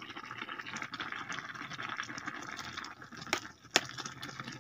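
Pot of water boiling with a steady bubbling hiss. Two sharp clinks of a metal spoon come about three and a half seconds in.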